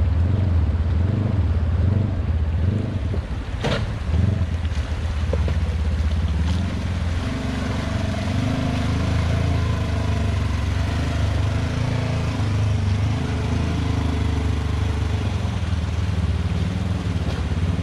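Polaris RZR S4 1000 side-by-side engine running steadily as it drives down into and through a shallow rocky creek. There is a single sharp click about four seconds in.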